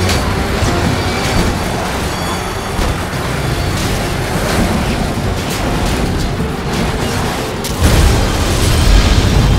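Action film soundtrack: music under a dense run of booms and sharp impacts, with a louder, deep boom about eight seconds in.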